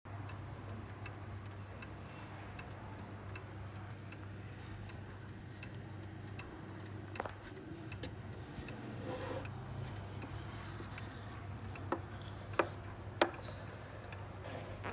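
Japanese wooden mantel clock's pendulum movement ticking steadily and evenly, over a low steady hum. A few sharper, louder knocks come in around the middle and near the end.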